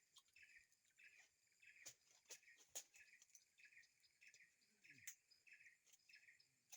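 Faint forest ambience. A short chirp repeats evenly about every 0.6 s over a steady high insect buzz, and a few sharp ticks sound around two to three seconds in and again near five seconds.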